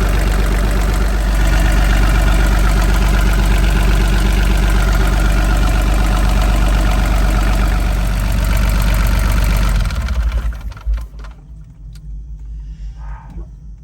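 Volvo Penta D1-30 marine diesel idling loudly and steadily, then shut off about ten seconds in, its rumble dying away over a second or so.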